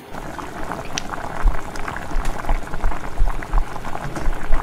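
Saucepan of water at a rolling boil with spaghetti cooking in it, bubbling and popping irregularly, with occasional low bumps.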